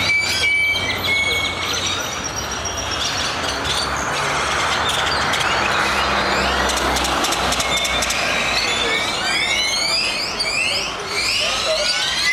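A large flock of birds calling noisily: many short, rising calls overlapping continuously over a steady background rush.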